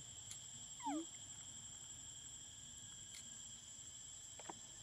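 A macaque gives one short squeak about a second in, falling quickly in pitch, over a steady high insect drone.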